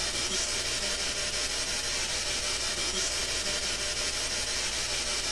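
Steady hiss of a recording's noise floor, strongest in the upper range, over a faint low hum, with no clear voice. The investigators mark this stretch as holding an EVP voice answering "oui".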